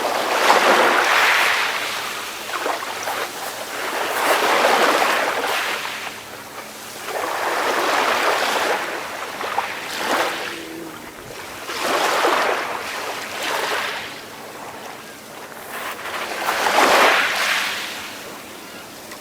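Ocean waves washing onto a shore, each swelling and fading away, about every two to four seconds.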